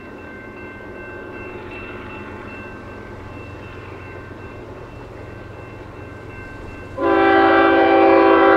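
A grade-crossing warning bell rings steadily, then about seven seconds in the lead locomotive's air horn sounds a loud multi-note chord, blowing for the crossing as the train approaches.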